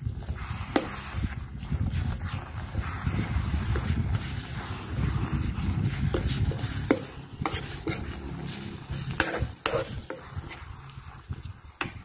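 Metal spoon stirring and scraping a thick chili paste of minced chicken as it fries in a small electric frying pan, with several sharp clinks of the spoon against the pan.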